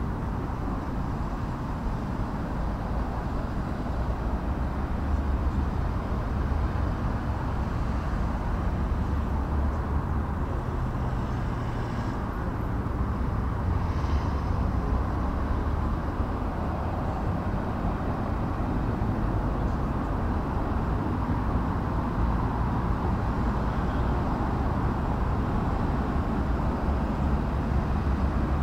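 Steady low vehicle engine rumble.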